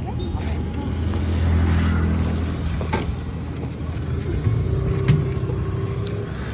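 Street traffic: a vehicle engine running close by, loudest between about one and three seconds in, with a few sharp knocks as passengers climb into a rickshaw.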